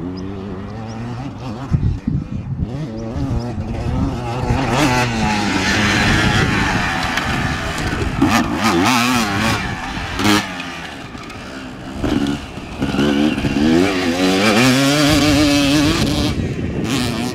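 Motocross bike on a dirt track, its engine revving up and down again and again, the pitch rising as it accelerates and dropping as the rider shifts and backs off.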